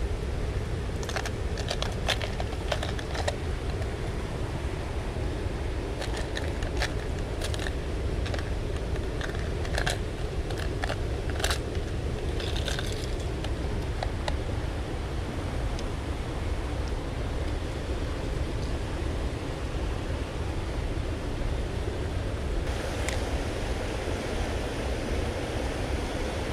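Steady rush of river water over a weir and its rapids, with a scatter of clicks and rattles from fishing tackle being handled at a plastic tackle box through the first half.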